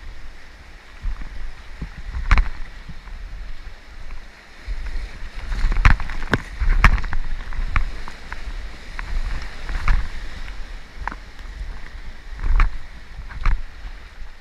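Kayak paddling on a river: irregular splashes and knocks of the paddle in the water, about one a second, over a constant low rumble of moving water and wind.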